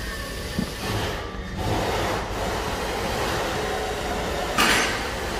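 A cardboard watch box is handled and slid apart, its sleeve rubbing with a steady scraping noise, and a short, louder scrape near the end.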